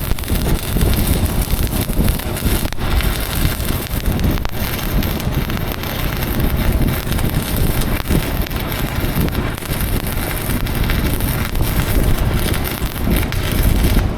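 Stick-welding arc crackling and sizzling steadily as a bead is run on the steel bucket. The high sizzle cuts off abruptly at the very end, as the arc is broken.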